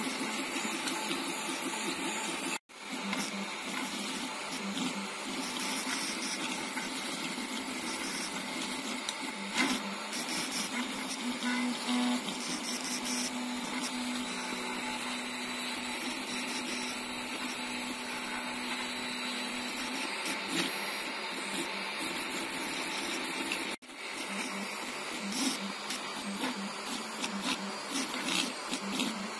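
Home-built CoreXY 3D printer printing: its stepper motors whir and shift in pitch as the print head moves back and forth. About a third of the way in, a steady hum holds for several seconds. The sound cuts out for an instant twice.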